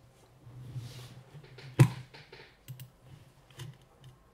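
Computer mouse and keyboard clicking and tapping at a desk, a scattering of short clicks with one sharper, louder click a little under two seconds in.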